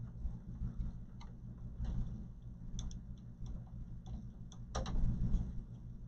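Screwdriver working screws inside a desktop PC's metal case: scattered light clicks and ticks, with a sharper click near the end, over a steady low hum.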